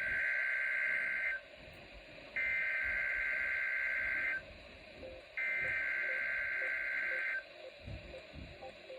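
NOAA Weather Radio SAME alert header: three identical bursts of two-tone digital data squawk, each about two seconds long with about a second's pause between them. It is the coded start of a National Weather Service Required Weekly Test of the alert receivers.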